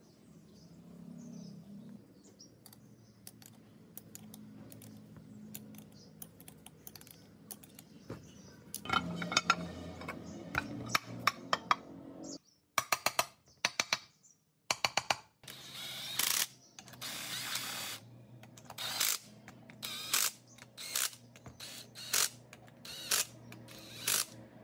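Workshop work on metal parts: a run of sharp clicks and metallic knocks from hand tools, sparse at first and getting busier and louder about a third of the way in, with two brief cut-outs to silence around the middle.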